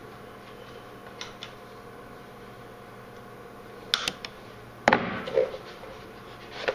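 Steady electrical hum from the switched-on welder. There are a few light metallic clicks about four seconds in, then one sharp metal clank about five seconds in as tools and metal are handled on the bench.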